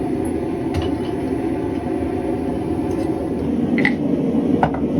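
Forge running with a steady low rushing noise while steel heats in it, with a few light metallic clicks and knocks.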